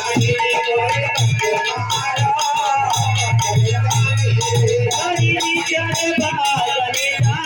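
Indian folk music: a steady low drum beat under a wavering melody line.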